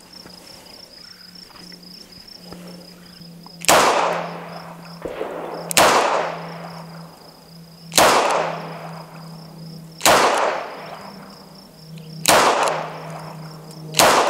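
Taurus 856 snub-nose revolver in .38 Special fired double action, six shots spaced about two seconds apart, the first almost four seconds in, each trailing off in a short echo. Crickets chirp steadily underneath.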